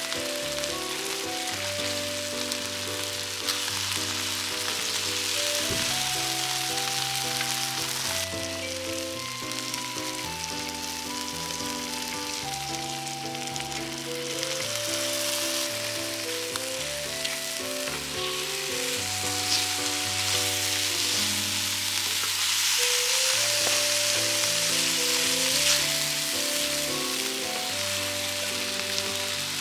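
Food frying with a steady sizzle, under background music with a melody and a bass line.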